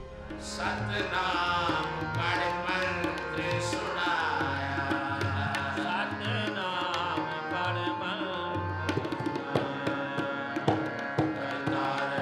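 Indian music: tabla playing a steady rhythm under a held drone and a melody line.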